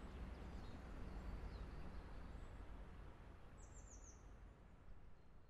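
Faint outdoor ambience: a steady low rumble with a few short bird chirps, the clearest a quick run of descending notes about three and a half seconds in. The ambience slowly fades toward the end.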